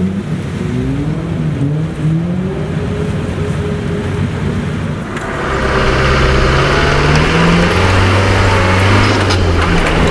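Off-road 4x4 engine revving, its pitch rising and falling, during a strap recovery of a vehicle stuck in a muddy water-filled rut. About five seconds in it changes to a louder, close-up Land Rover Defender engine running steadily under load, with a rushing noise over it.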